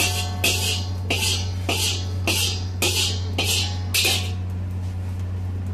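Metal spatula striking and scraping an iron wok in a regular rhythm, about two strokes a second, as fried rice is scooped out; the strokes stop a little after four seconds in. A steady low hum runs underneath.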